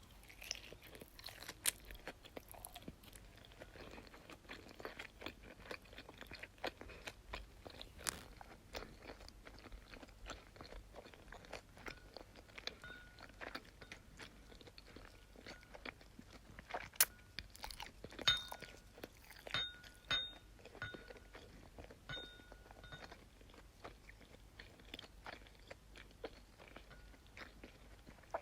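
Close-miked crunching and crackling: many small sharp clicks in quick succession. In the second half, short high squeaky tones come and go several times.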